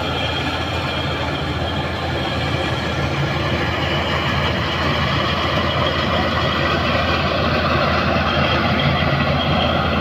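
Changfa rice combine harvester running steadily as it cuts through standing rice, its engine and machinery making a continuous drone. It grows a little louder as the machine comes closer.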